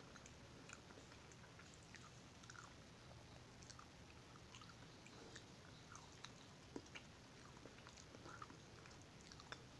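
Faint chewing of soft fried banana, with scattered small wet mouth clicks and a few sharper clicks about six to seven seconds in and again near the end.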